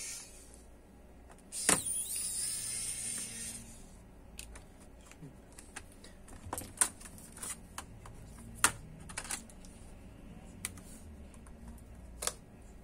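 Scattered small clicks and taps of a screwdriver and plastic laptop parts being handled during disassembly. About two seconds in there is a louder knock, followed by a brief high hiss.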